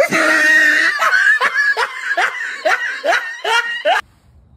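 A person laughing in a run of short pulses, about two or three a second, that stops suddenly near the end.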